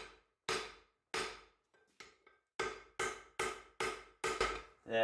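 Three-pound cross-peen hammer striking a red-hot bar of 3/4-inch square steel on a 170-pound anvil. There are about ten blows, each ringing briefly: a few spaced blows, a pause, then a quicker run of them.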